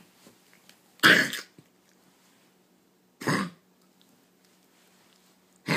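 A pet dog or cat coughing: three separate short, harsh coughs about two seconds apart, the first the loudest, a recurring cough being recorded for the vet.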